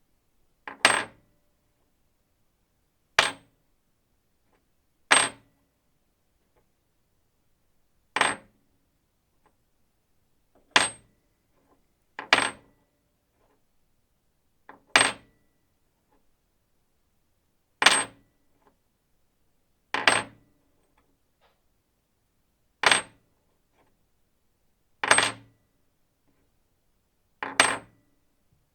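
Metal bolt dropped onto a wooden table again and again: about twelve separate sharp impacts, two to three seconds apart, each with a brief high metallic ring and sometimes a small bounce just before or after.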